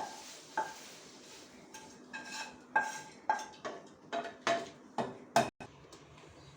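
Metal spoon clinking and scraping against steel cookware: about a dozen short ringing clinks, coming closer together from about two seconds in, with a sharp knock near the end.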